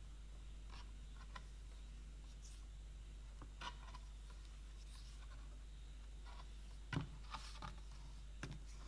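Thick cardboard pages of a board book being turned and handled on a wooden table: scattered soft scrapes and taps, the loudest a knock about seven seconds in, over a faint steady hum.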